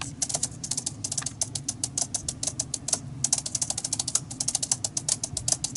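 Broomsticks, percussion rods made of bundled broom grass, played with both hands in a fast, even patter of light taps, about ten a second. The sound is soft and brushy.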